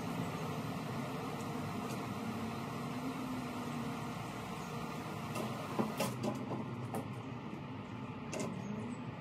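Plywood panels knocking and clattering as they are handled, in a short run about five and a half to seven seconds in and once more near the end, over a steady low hum.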